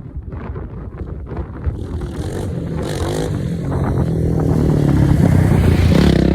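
Polaris Outlaw 500 ATV's single-cylinder engine running, growing steadily louder through the last few seconds.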